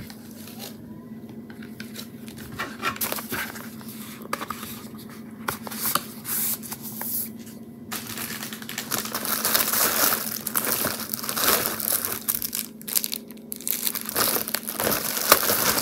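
Clear plastic packaging crinkling and rustling as a package of false lashes is handled and unwrapped. The crackling is sparse at first and grows denser and louder about halfway through.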